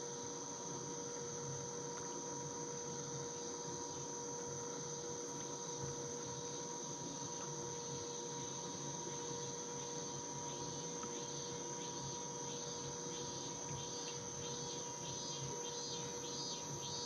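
Insects droning steadily from the wooded shore, with a faint steady hum underneath. About ten seconds in, a second insect call joins, pulsing about twice a second and growing louder.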